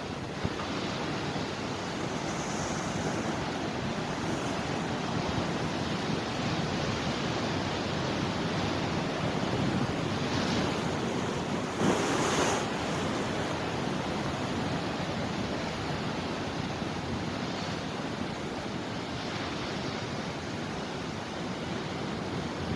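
Mediterranean sea waves breaking and washing ashore in a steady surf, with one louder wave crashing about halfway through.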